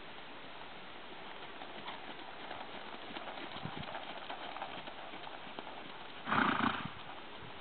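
Hoofbeats of an APHA mare moving under saddle over a sand arena: soft, dull, irregular thuds. About six seconds in comes a short, loud burst of noise lasting about half a second, the loudest sound here.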